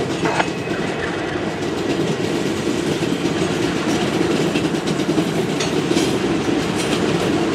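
ALCo RS32 diesel locomotive with its V12 251 engine running as it moves slowly pulling covered hopper cars, a steady rumble with a few clicks from the wheels.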